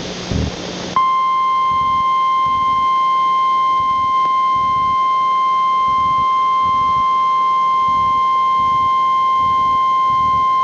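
Emergency Alert System warning tone for a tornado warning, a single steady high-pitched beep held for about ten seconds. It starts sharply about a second in, after a moment of static hiss, and announces that an emergency warning message is about to be read.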